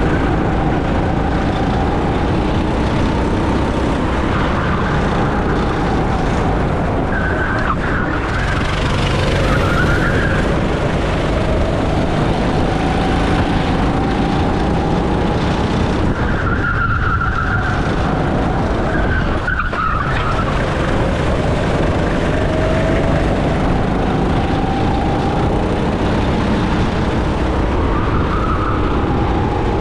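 Go-kart engine running at racing pace, its pitch climbing steadily and then dropping sharply several times as it lifts off for corners.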